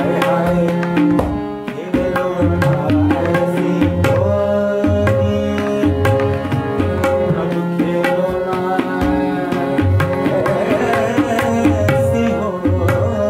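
Tabla and harmonium playing a Kumauni classical Holi in raag Jangla Kafi. Rhythmic tabla strokes run under the harmonium's held notes.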